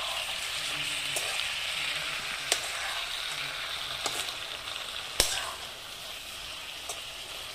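Food sizzling in a hot pan, a steady hiss with a few sharp clicks scattered through it, easing off slightly in the last couple of seconds.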